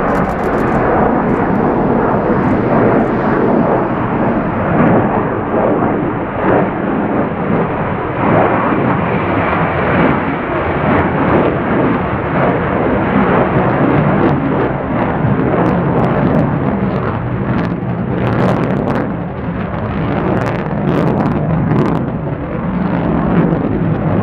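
Jet noise from a B-1B Lancer bomber's four turbofan engines as it flies past, loud and steady with a rough crackle running through it.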